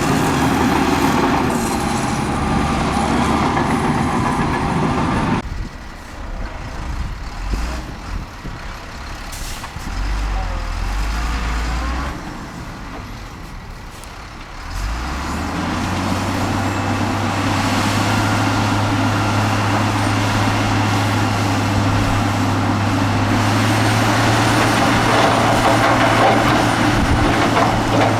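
Heavy diesel earthmoving machinery running. The engine noise is loud for the first five seconds, drops to a quieter, uneven rumble, then returns about fifteen seconds in as a steady, deep engine drone that grows slightly louder.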